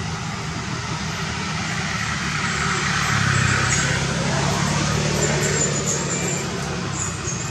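Steady low engine rumble of road traffic, swelling louder about three seconds in and easing off later.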